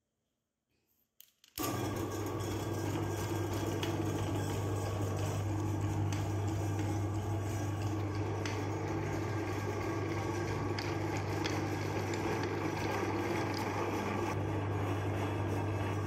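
Electric meat grinder motor switching on about a second and a half in and then running with a steady, even hum.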